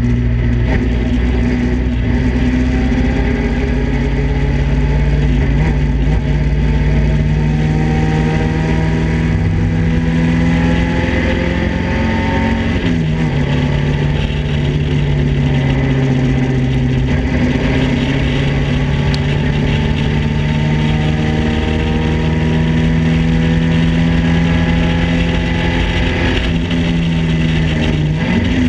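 Datsun Roadster's four-cylinder engine running hard at high revs on track, heard from the open cockpit with wind rush over it. The engine note dips in pitch briefly about halfway through and again near the end.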